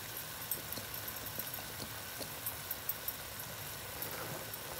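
Chicken pieces frying in soy and sweet chili sauce in a wok on high heat: a steady sizzle with small scattered pops from the bubbling sauce.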